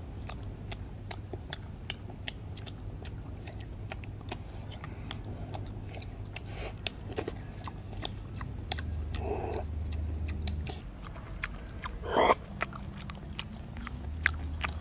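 Eating sounds of cooked field snails being picked from their shells and chewed: a steady run of small, irregular clicks and mouth smacks. One brief, much louder noise about twelve seconds in.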